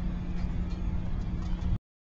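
Steady low rumble of background noise with a few faint ticks, cutting off suddenly near the end.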